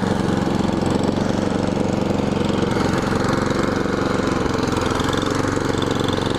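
Toro snowblower's engine running steadily under load while clearing heavy snow, an even, unbroken drone.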